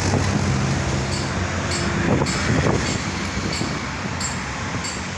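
Street traffic: steady road noise with the low hum of a vehicle engine running, easing off slightly toward the end.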